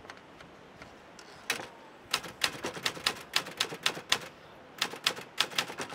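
Portable typewriter being typed on: a single key strike, then quick runs of key strikes from about two seconds in, broken by a short pause.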